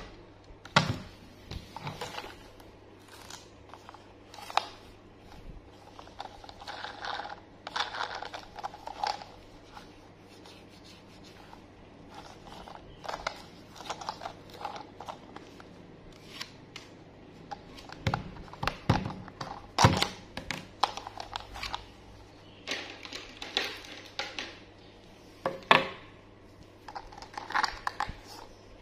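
Hard plastic toy train handled by gloved hands: scattered clicks, knocks and rubbing as it is picked up, turned over and its battery cover taken off.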